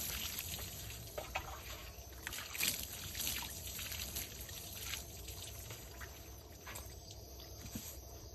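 Water poured from a plastic dipper splashing over a cow's head and onto wooden deck boards as it is rinsed and rubbed by hand; the splashing eases off after about five seconds.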